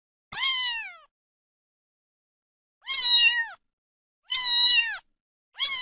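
A cat meowing four times, each meow high-pitched and under a second long. The first falls in pitch; after a pause the other three come about every one and a half seconds.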